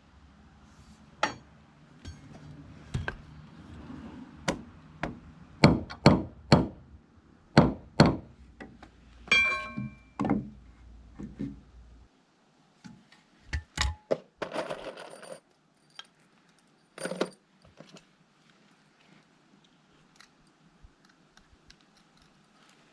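Irregular knocks and thunks of hand work with tools and timber, loudest around six to eight seconds in, with a ringing metallic clink about nine seconds in. After that come a few scattered knocks and a short scraping noise, and the sounds thin out.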